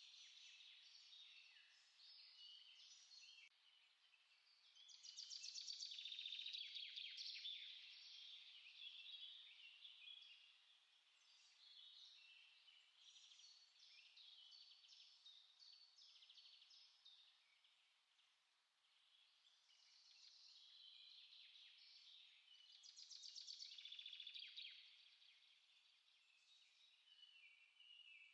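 Several small songbirds chirping and singing without a break. Two louder rapid trills come about five seconds in and again later.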